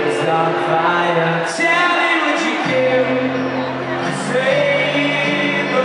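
Live acoustic guitar with singing, a song played on stage and recorded from the audience.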